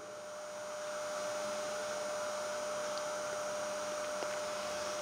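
Steady background hum and hiss, with one steady mid-pitched tone running through it.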